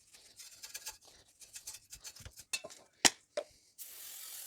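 Wire brush scrubbing the bare metal of the hub mounting face, a few sharp metal clicks and knocks, then an aerosol can of brake cleaner spraying in a steady hiss near the end.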